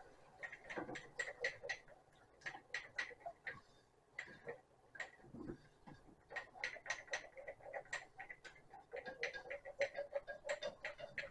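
Wire whisk ticking rapidly against the sides of a nonstick pot, several light clicks a second in runs with short pauses, as milk is whisked into a thick, paste-like soup base.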